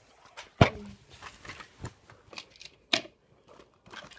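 A handful of sharp clicks and knocks from plastic Trackmaster toy train wagons being handled and set down on a wooden tabletop, the loudest about half a second in.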